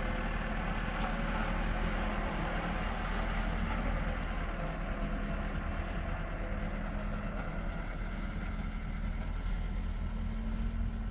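Single-drum road roller's diesel engine running steadily as the roller drives over a gravel-filled paving grid.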